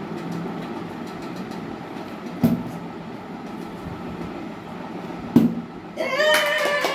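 Two thuds, about three seconds apart, of a plastic water bottle flipped and landing on the table, over a steady background hiss. Voices break in near the end.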